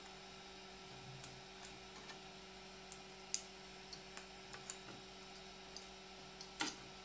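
Small scattered clicks and crackles of a thin PLA brim being peeled and snapped off a 3D-printed plastic knot by hand, the sharpest click near the end.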